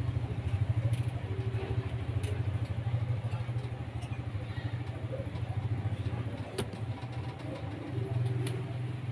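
A low, steady motor rumble with a fast pulsing beat, fading slightly toward the end, with a few light clicks over it.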